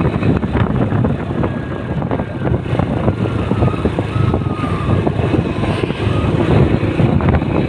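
Steady rumble of a moving road vehicle's engine and tyres, with faint high whistling in the middle.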